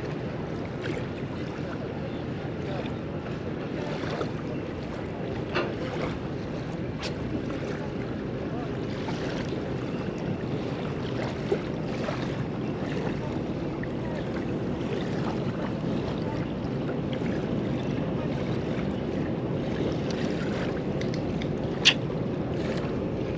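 Small waves lapping at a shoreline with wind on the microphone, a steady rushing, broken by a few sharp clicks, the loudest near the end.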